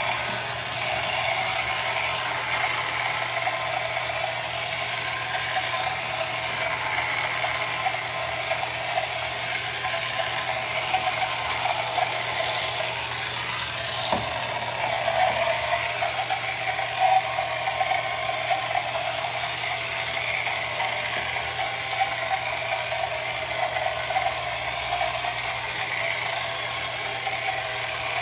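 Battery-powered Motorific outboard motor of a 1968 Ideal Boaterific Avenger toy boat running steadily: a small electric motor and its gears giving a continuous buzzing rattle.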